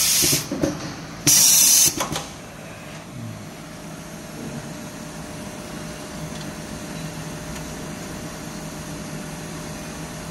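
Heat-shrink tube insertion and baking machine: a short burst of hissing air just at the start and another about a second in, each about half a second long, with light mechanical clicks between. After that the machine runs with a steady low hum.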